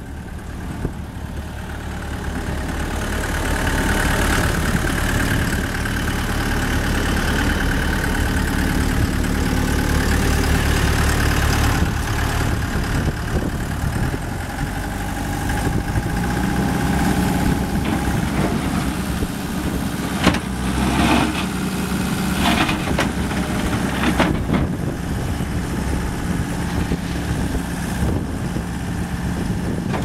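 Gehl 5640 skid steer loader's diesel engine running, held at higher revs for several seconds, with a few sharp metallic clanks about two-thirds of the way through as the machine moves and works its lift arms.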